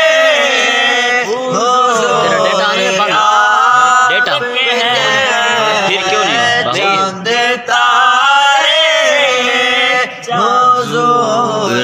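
Men's voices singing a devotional naat unaccompanied, drawing out long, winding melodic notes.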